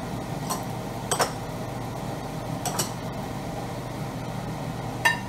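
Wooden spatula stirring vegetables in a nonstick wok, knocking against the pan with a few sharp clacks, about four over five seconds, over a steady background hum.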